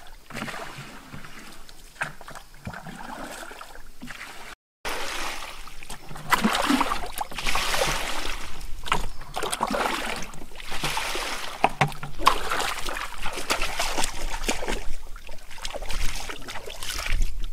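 Water splashing and sloshing in a shallow, nearly drained muddy pond, fish thrashing in the water, as irregular sharp splashes over a wet hiss. A brief gap about four and a half seconds in, after which the splashing is louder and busier.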